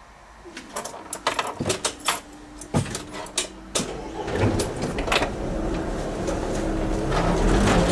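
Inside a car cabin: a quick run of sharp clicks and knocks, then the car's engine running and growing steadily louder from about four seconds in as the car gets going.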